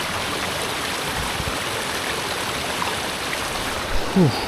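Steady rushing of a stream of running water, an even wash of noise. A brief voice-like sound breaks in near the end.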